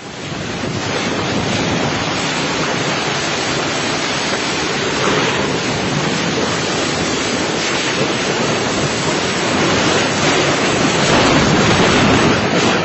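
Strong storm wind rushing and buffeting the microphone in a continuous loud roar, swelling in gusts about five seconds in and again near the end.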